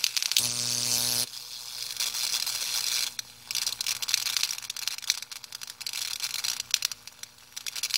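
High-voltage electric arc from a 15 kV transformer, crackling and hissing as it jumps onto a rock, with a loud steady buzz for about a second near the start.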